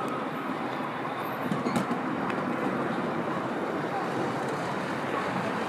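Steady city traffic noise: a constant hum of road traffic across a large open square, with a brief low thump about a second and a half in.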